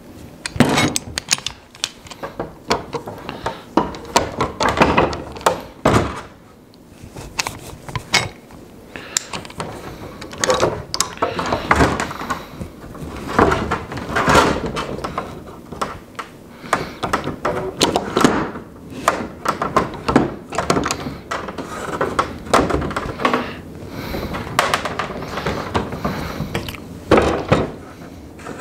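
A metal bar clamp being fitted and tightened across loose wooden boards: irregular clicks and clatter from the clamp, with knocks of wood against wood throughout.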